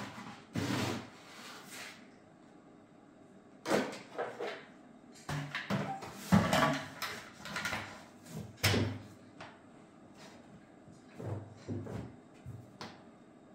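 A Petsroom automatic cat litter box being handled: a plastic scoop scraping through the litter, then a flat plastic panel knocking against the tray, in scattered scrapes and clunks. The loudest knocks come about halfway through.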